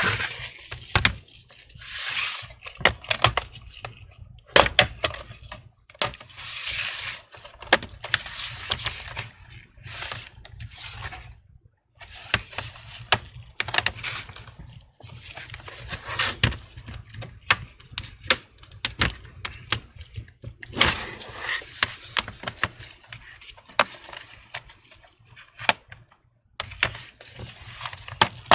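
Plastic pry tool scraping along the seam of a laptop's plastic bottom cover while the cover's retaining clips snap loose: many sharp clicks and snaps between stretches of scraping.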